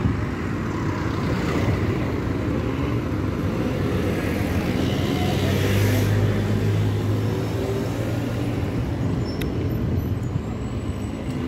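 Street traffic: a car engine hum as a car drives past, loudest about halfway through, over general town street noise.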